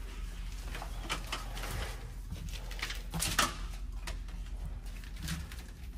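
A new plastic hose is pushed through a hole in a refrigerator's bottom panel by hand, with scraping and rustling and a louder knock a little past halfway, over a low steady hum.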